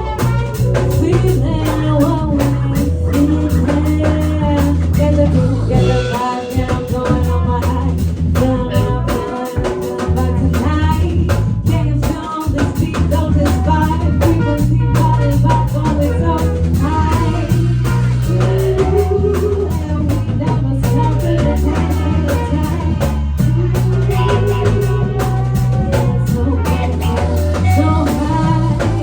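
A band playing a groove: a drum kit keeping a steady beat under a repeating bass line, with guitar on top.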